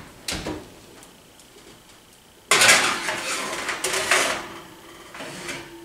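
Metal sheet pan clattering and scraping as it is slid into an oven, with a short knock near the start and the main clatter, about two seconds long, beginning about two and a half seconds in.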